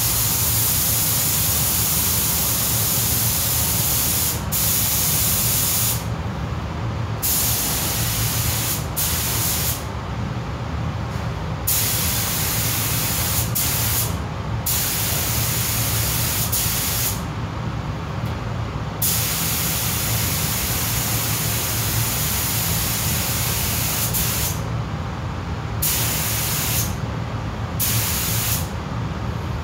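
Air spray gun spraying primer onto plastic car parts, its hiss starting and stopping as the trigger is pulled for passes of one to several seconds with short breaks between. A steady low hum runs underneath.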